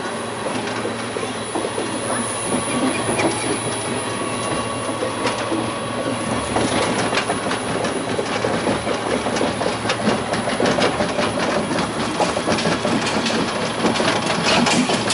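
A Vekoma/Caripro monorail car running along its elevated track: a steady rolling noise of the wheels on the rail, with rapid rattling clicks that grow busier from about halfway in.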